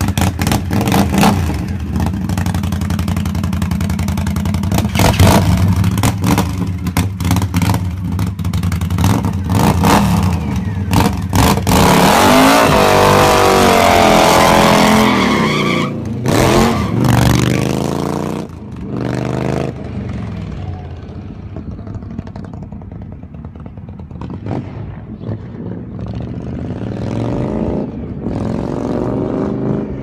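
Indian Scout's liquid-cooled V-twin through a Dirty Bird Concepts aftermarket exhaust, revved in rapid throttle blips. About halfway through it is held at high revs, its pitch rising and falling for a few seconds. After that it is quieter and farther off, riding, with a couple of rising and falling passes near the end.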